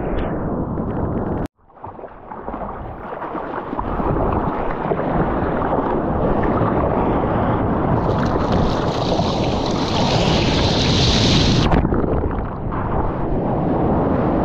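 Wind and ocean surf rushing on the microphone in an even roar. It cuts out sharply about a second and a half in and builds back up. A brighter hiss joins from about eight seconds in and stops abruptly near twelve.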